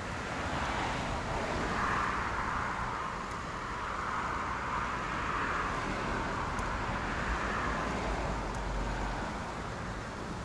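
Road traffic: a vehicle passing by, its tyre and engine noise swelling over the first couple of seconds, holding, and fading away near the end.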